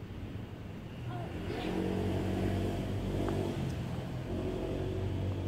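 A motor vehicle engine running steadily, its low hum swelling about a second and a half in and staying loud.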